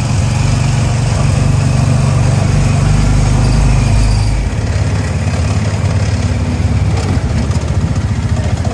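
Small gasoline engine of a track-guided antique car ride running with a steady low putter; its note drops and grows quieter about four seconds in as the car pulls into the loading station.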